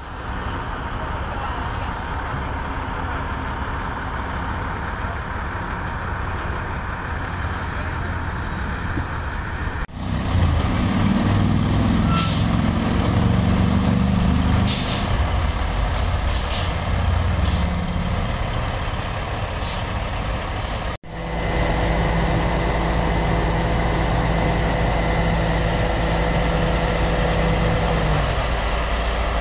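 Heavy truck engine running. In the middle stretch it rises and falls unevenly, with several short hisses of air; in the last stretch it runs steadily, with a hum that stops a little before the end.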